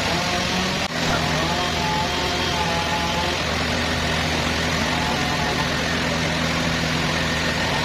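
Engine of wood-cutting sawmill machinery running steadily at constant speed, with a short dip in level about a second in.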